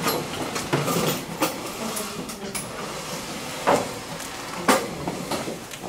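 Classroom chairs knocking and scraping as students get up from their seats around a table, with shuffling and rustling and several sharp knocks.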